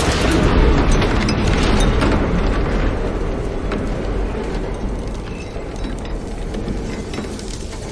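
Aftermath of a car crash: a heavy rumbling din from the impact slowly dies away, with scattered sharp clicks and rattles of debris settling.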